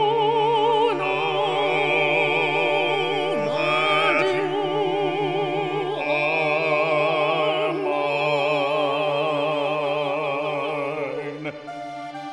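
Operatic singing in sustained, wide-vibrato notes over a steady low held accompaniment note. The voice stops near the end, leaving a few quieter instrumental notes.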